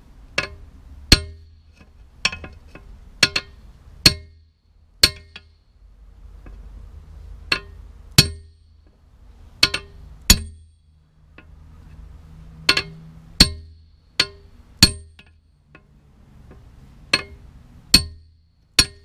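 Hammer striking a tire spoon against a steel two-stroke dirt-bike exhaust header, hammering out a crease: about twenty sharp metallic clangs with a short ring, irregularly spaced and often in pairs, with pauses of a second or two between groups.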